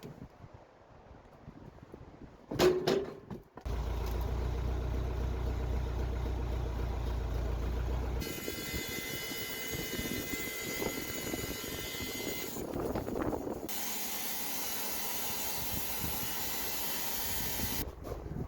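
Engine-driven saw running while milling a big spruce log, heard in several short clips joined by abrupt cuts, with a sharp knock about three seconds in.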